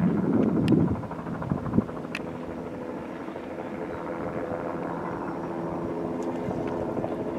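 Distant search-and-rescue helicopter flying over the sea: a steady drone of engine and rotor. A louder, uneven rumble comes in the first second.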